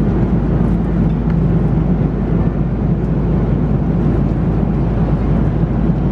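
Airbus A330-300 airliner cabin noise in flight: a steady, even drone of airflow and engines, heaviest in the low end.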